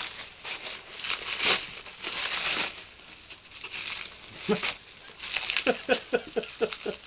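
Plastic wrapping film crinkling and rustling in irregular bursts as it is pulled and torn off the packaged parts. Near the end comes a quick run of short pitched squeaks, about five a second.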